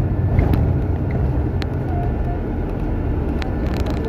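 Bus on the move: steady low engine and road rumble, with a few brief clicks and rattles.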